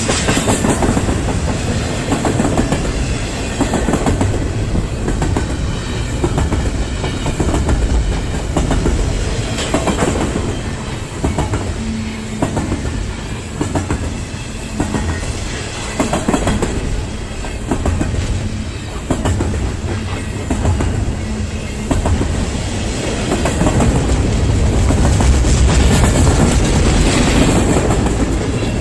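Intermodal container freight train's cars rolling past, the wheels clattering irregularly over rail joints over a steady low rumble. The sound grows louder for a few seconds near the end.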